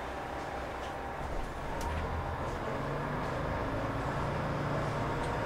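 Diesel engine of a KTR8000 'Tango no Umi' railcar, heard from inside the cabin: a low drone that grows louder about two seconds in and settles into a steady hum as the train starts to move off.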